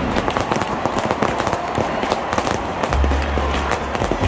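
Aerial fireworks bursting overhead: a dense run of rapid pops and crackles from crackling stars. A low steady hum comes in about three seconds in.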